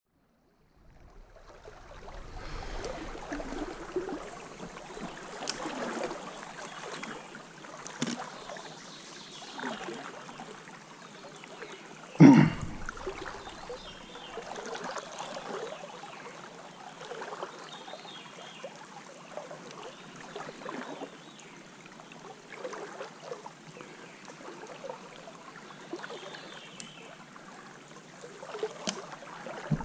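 Stream water flowing and lapping, with scattered small splashes and one loud knock about twelve seconds in.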